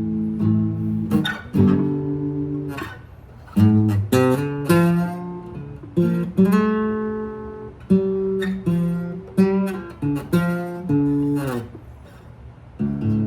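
Acoustic guitar strummed, a run of chords with a sharp strum about every second and the notes left to ring between strums.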